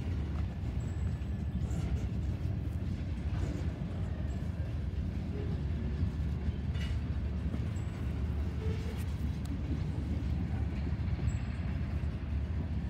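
Freight train of tank cars, boxcars and hoppers rolling past: a steady low rumble with a few sharp clicks.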